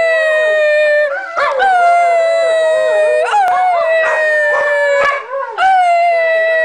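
Dogs howling in long, drawn-out howls, each starting high and sliding slowly down in pitch, with a second, wavering howl beneath the main one. A fresh howl starts about a second and a half in, another near three and a half seconds, and another near five and a half.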